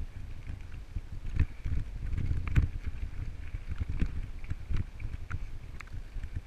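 Mountain bike ridden along a dirt trail: wind rumbles on the microphone, and the bike gives sharp clicks and knocks as it jolts over the bumps.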